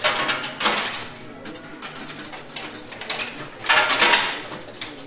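Metal coins clattering and clinking in a coin pusher machine, with two louder rattles, one at the start and one about four seconds in.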